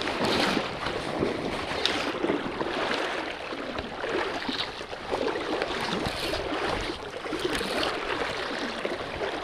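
River current flowing steadily over a shallow gravel bed, with wind gusting on the microphone as an irregular low rumble.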